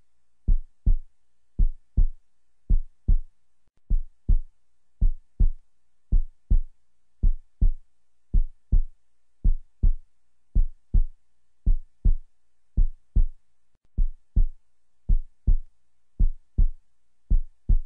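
Heartbeat sound effect: a steady run of deep double thumps, one lub-dub pair about once a second.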